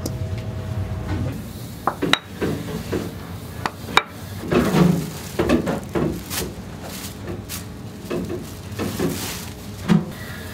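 Kitchen handling sounds: a few sharp clicks and knocks, then thin plastic film rustling and crinkling in repeated bursts as it is spread out on a cutting board.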